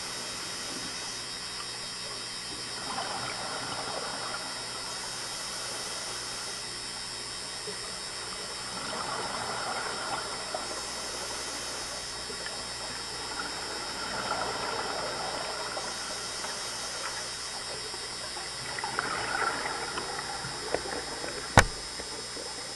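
Scuba diver exhaling through a regulator underwater: four bubbling swells about five seconds apart over a steady high tone. A single sharp click near the end.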